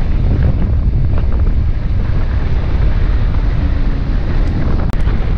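Wind buffeting the helmet-camera microphone on a motorcycle riding at highway speed: a loud, steady rumble that hides the engine. Near the end the sound cuts out for an instant with a click.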